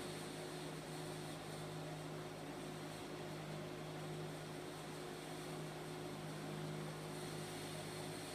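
A steady low electrical hum with a fainter higher tone above it, over a constant background hiss.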